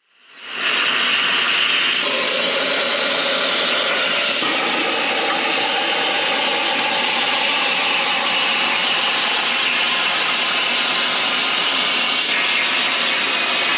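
Steady, harsh noise of a power tool running continuously, faded in at the start and out at the end, with small shifts in tone along the way.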